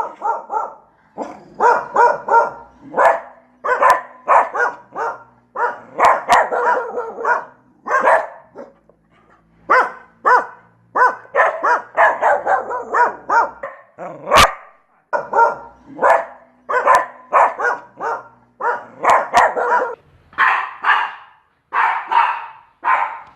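Dog barking repeatedly in quick runs of short barks, with brief pauses between runs.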